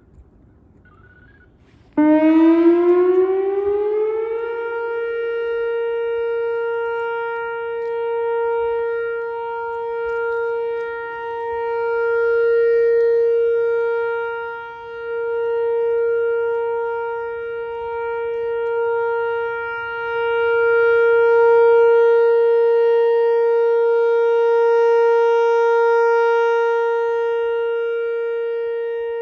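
Whelen WPS-4004 electronic outdoor warning siren sounding a steady alert signal during its weekly test. It starts about two seconds in with a rising wind-up in pitch, then holds one steady tone. The tone swells and fades in loudness every few seconds.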